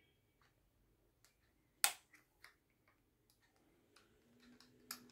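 Scattered small clicks and light scrapes of an Allen key working the stock screw of a PX100 gun loose, with one sharp click about two seconds in and another near the end.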